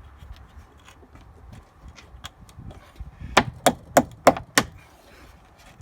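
Five quick, sharp taps, about three a second, knocking the socket end of an Audi A2 tailgate gas strut onto its ball-stud mount. The strut end is not seating on the stud.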